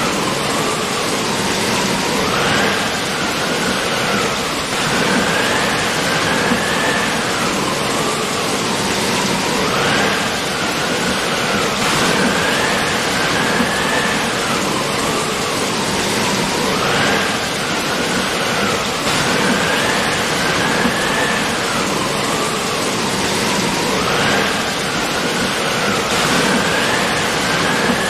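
Steady rain noise, even and unbroken, with a faint wavering tone that rises and falls every few seconds.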